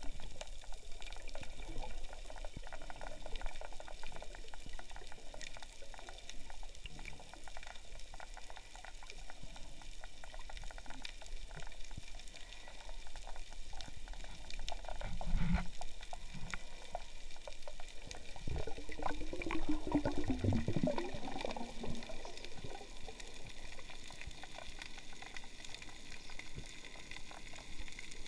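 Underwater ambience picked up by an action camera in its waterproof housing: a steady crackling hiss. A low muffled thump comes about fifteen seconds in, and a wavering, falling sound follows around twenty seconds.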